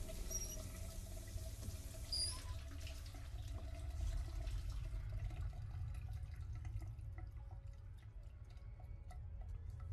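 Shower water running and being shut off at the wall tap: the spray fades out about five seconds in and leaves scattered drips ticking on the tiles. A steady low rumble lies underneath throughout.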